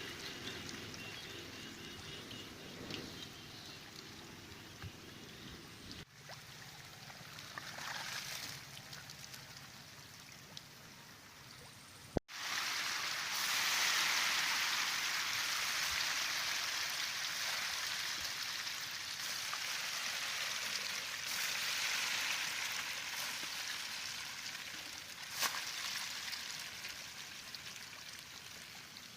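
Water trickling and splashing as a steady hiss. It changes abruptly about six seconds in, then again about twelve seconds in, after which it is louder.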